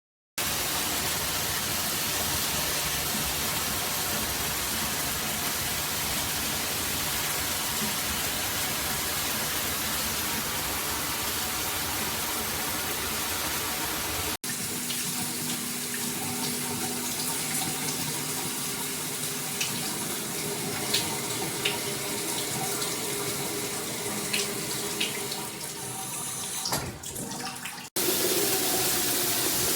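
Water spraying steadily from a handheld shower head, a continuous rushing hiss, with a few light ticks in the middle and two abrupt breaks where the sound cuts off and resumes.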